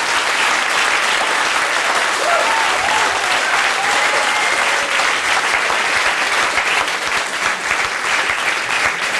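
Studio audience applauding: dense, steady clapping from many hands that holds at an even level throughout.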